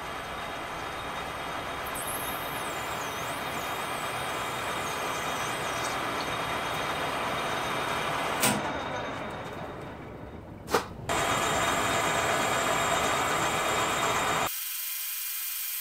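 Metal lathe running while machining a short piece of PVC pipe, a steady machine noise with the sound of the cutting. Two sharp clicks come a little past the middle, and the noise turns louder just after and changes abruptly near the end.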